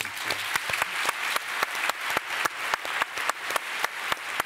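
Audience applauding, with one nearby pair of hands clapping clearly above the rest at about three claps a second.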